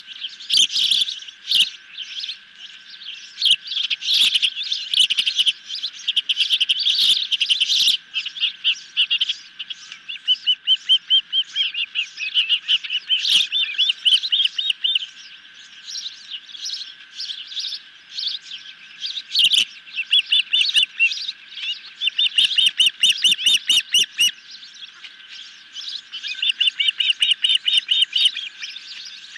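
Ospreys calling at the nest: repeated runs of shrill, rapid chirps, some runs fast and even.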